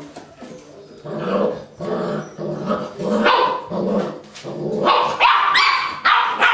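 Eight-week-old puppies fighting over a bone in food-guarding aggression: a string of short, low growls, turning to louder, higher-pitched barks and yelps in the second half.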